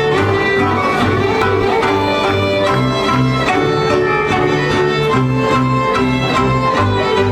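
Folk string band playing dance music: violins carry the tune over a bowed bass line that steps from note to note, with a steady beat.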